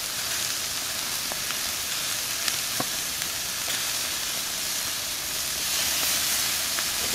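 Strips of chuck steak sizzling on a grill over mesquite lump charcoal: a steady hiss with a few sharp pops scattered through.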